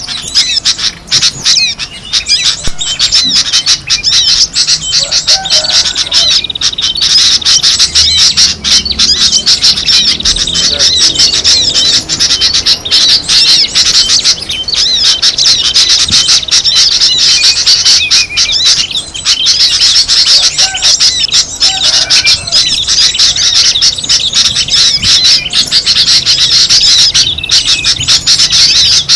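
Bird-lure recording of many small songbirds chirping and chattering at once: a dense, loud stream of rapid high chips and trills.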